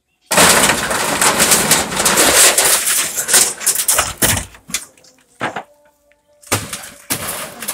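A wooden and bamboo booth being knocked apart with a bamboo pole: a loud clattering crash of boards, poles and corrugated roofing for about four and a half seconds, then a few shorter crashes near the end.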